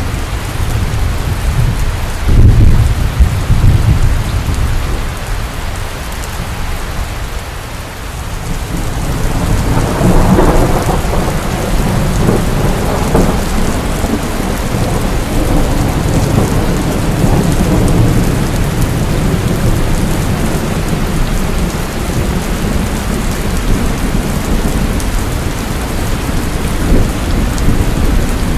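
Heavy rainstorm: a steady downpour with thunder, a sudden loud crack about two seconds in and a long rolling rumble from about ten seconds in.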